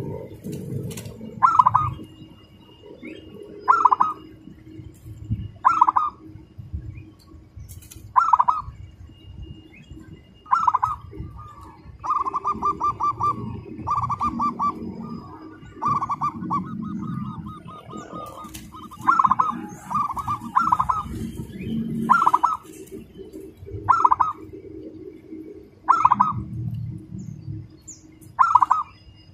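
Zebra dove (perkutut) cooing: short bursts of rapid, tightly spaced staccato notes about every two seconds, running into longer strings of fast notes in the middle. Faint chirps of small birds in the background.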